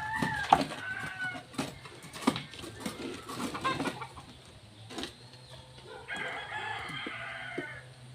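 A rooster crowing once, one held call of about a second and a half, starting about six seconds in. Earlier come short clucking calls and scattered sharp knocks.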